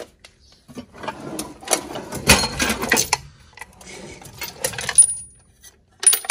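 Small metal tools clattering and rattling in a steel tool chest drawer as a hand rummages through it, in dense bursts, with a couple of short high squeaks near the end.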